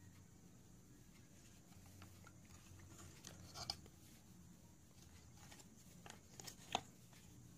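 Near silence with a few light handling clicks and taps on the plastic infusion pump, the sharpest near the end.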